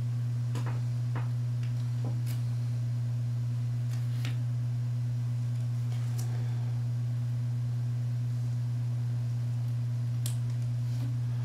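Steady low electrical hum with a fainter higher overtone. A few faint clicks come from trading cards being handled and stood up on a display.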